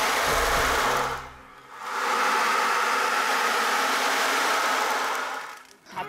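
Ocean drum tilted back and forth, its beads rolling across the drumhead in a steady rushing hiss that imitates waves on a shore. It comes in two swells: a short one that fades about a second in, then a longer one that dies away near the end.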